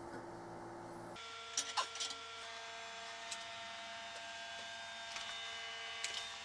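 Quiet workshop room tone: a steady faint hum with a few faint clicks, a quick cluster of three about a second and a half in and single ones later.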